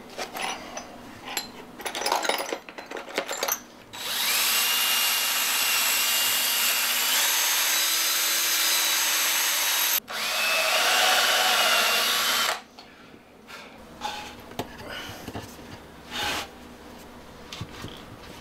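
Cordless drill boring through a small wooden block: a steady high motor run for about six seconds, a brief stop, then a second run of two or three seconds. Light clicks and rattles of small hardware before it, and a few soft knocks after.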